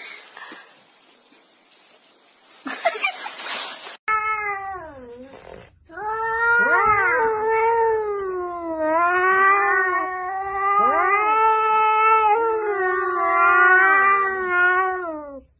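A few seconds of scuffling noise with a loud burst about three seconds in, then a cat yowling: several long, drawn-out calls that waver and swoop in pitch, one after another.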